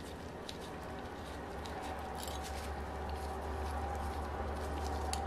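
A few faint metallic ticks and scrapes from a small L-shaped hex key working the cylinder screws of a model aircraft engine, over a steady low hum that slowly grows louder.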